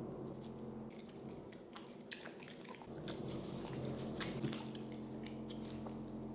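Chewing dragon fruit: soft, wet mouth smacks and small clicks coming irregularly, clustered around the middle and latter part.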